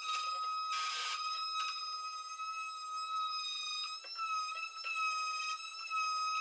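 Electric palm sander running at a steady high whine while sanding a wooden box with 220-grit paper. There is a short scratchy burst about a second in and a few light knocks as the pad works along the edges.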